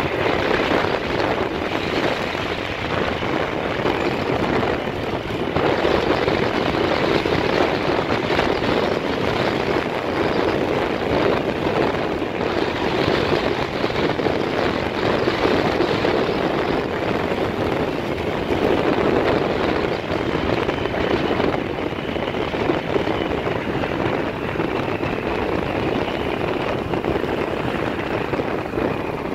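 A motorbike running at road speed, with a steady rush of wind and road noise over it.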